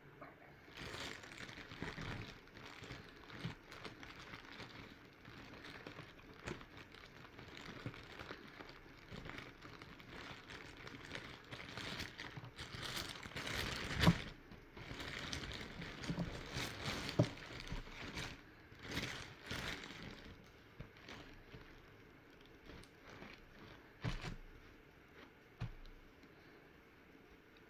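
A spoon scraping and tapping as a thick vegetable mash is spread onto a soft bun, with crinkly rustling throughout and a sharp knock about 14 seconds in.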